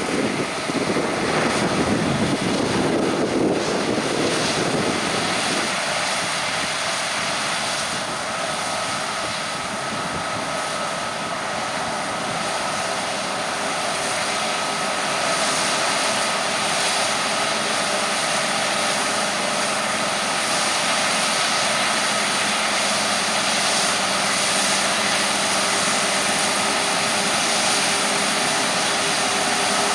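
Large diesel farm machinery at work harvesting wheat, running steadily. A heavier low rumble in the first five seconds or so then drops away, leaving an even drone with a faint high whine.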